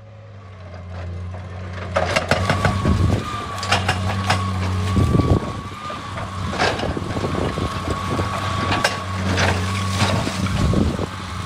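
Excavator's diesel engine running with a steady high whine, and rock knocking and clattering against rock or the bucket from about two seconds in.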